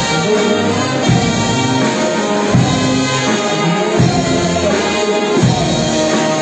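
Brass band playing music for a Negritos dance, with trumpets and trombones holding sustained notes over a steady accompaniment.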